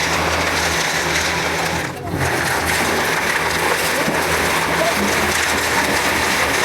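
Excavator engine running steadily under a loud, even hiss, which dips briefly about two seconds in.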